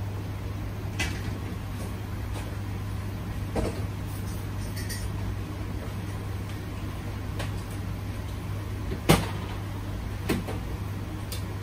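A few scattered knocks and clacks, the loudest about nine seconds in, over a steady low hum.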